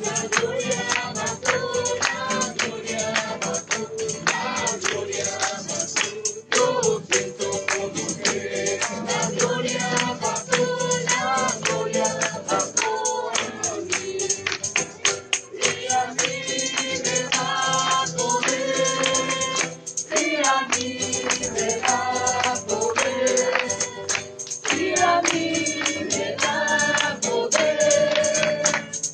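A group of voices singing a Christian worship chorus, with a tambourine shaken and struck in a fast, steady rhythm throughout.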